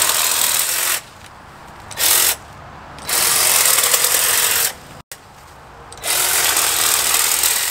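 Electric hedge trimmer running in bursts, its blades buzzing as they cut through a leafy shrub. It stops about a second in, gives a short blip, runs for about a second and a half, then runs again near the end.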